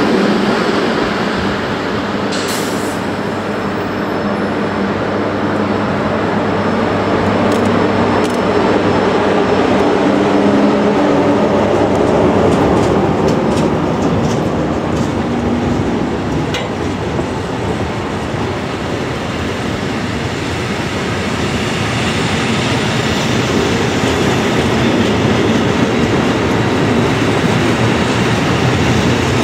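Freight train of loaded tank wagons, hauled by a DB Schenker class 1600 electric locomotive, rolling past close by at low speed. The sound is a steady loud rumble of steel wheels on rails with scattered clicks, and a low drone underneath that fades out about halfway through.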